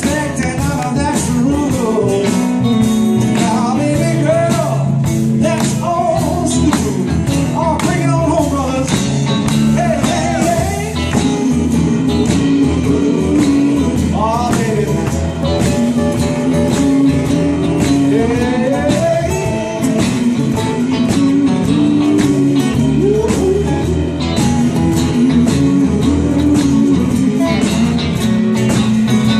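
Live band playing an upbeat blues-rock groove with guitar, bass and drums. A lead melody bends up and down over a steady beat.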